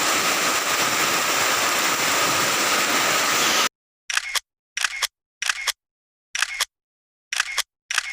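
Heavy rain falling steadily, cut off abruptly a little over three and a half seconds in. Then six short, sharp clicks about a second apart, with silence between them.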